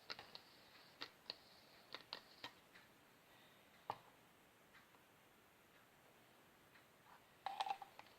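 Faint scattered clicks and light taps from a glue bottle and plastic mixing bowl being handled while glue is poured, with a short cluster of clicks near the end.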